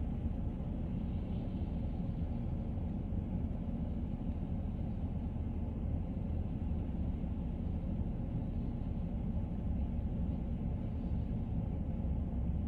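Steady low rumble of a vehicle driving, even throughout with no distinct events.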